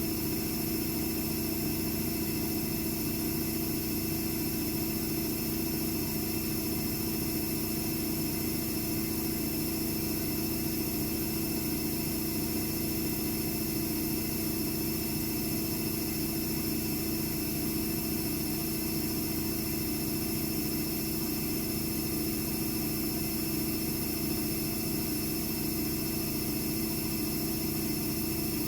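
AEG Lavamat W 1450 washing machine spinning its drum at a steady speed: an even motor hum with a constant high whine, without the stop-and-start of tumbling.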